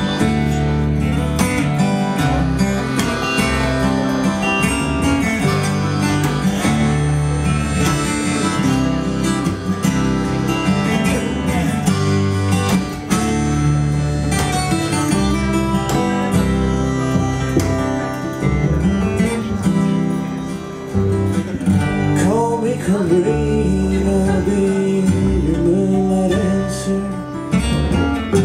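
Instrumental break of an acoustic blues song played live: strummed acoustic guitar over a double bass line, with a lead of held notes that bend in pitch, typical of harmonica.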